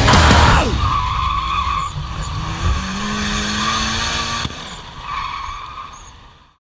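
Drift car sliding through a corner: tyres squealing in bursts over the running engine, whose pitch climbs a couple of seconds in, before it all fades out near the end. Loud rock music cuts off within the first second.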